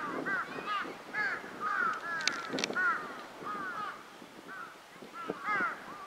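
Birds calling at the water's edge: rapid, overlapping short arching notes, a few a second, thinning out in the second half.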